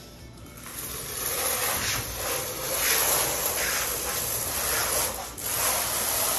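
Trowel scraping thinset mortar across the back of a large porcelain tile panel, in repeated strokes that begin about a second in.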